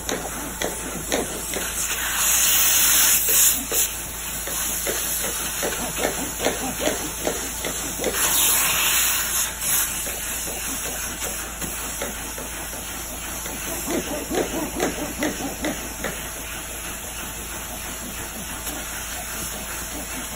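Upholstery steam-cleaning (hot water extraction) hand tool hissing as it is drawn over a fabric lounge cushion, with two louder hissing stretches about two seconds and eight seconds in.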